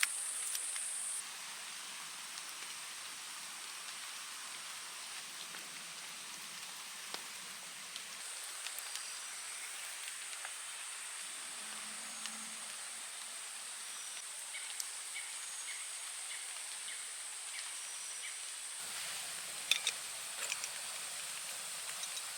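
Wet tropical forest ambience: a steady high-pitched insect drone that drops out about a second in and returns about eight seconds in. Scattered light drips and ticks and a few short, high chirps sound over it.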